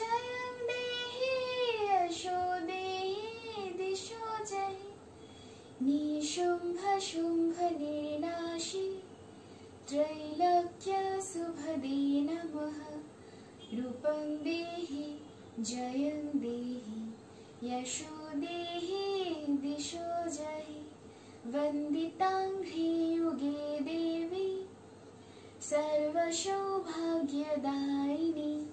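A young woman singing solo, a slow melodic song. It opens on a long held note that falls away about two seconds in, then goes on in short phrases with brief breaths between them.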